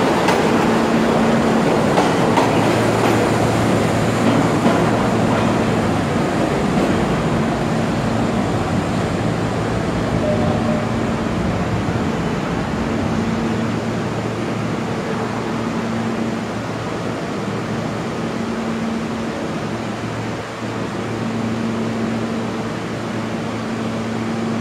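A vintage New York City subway train pulling out of the station. Its rumble and wheel clatter are loudest at first and fade as it draws away into the tunnel, leaving a steady low hum that breaks off and returns.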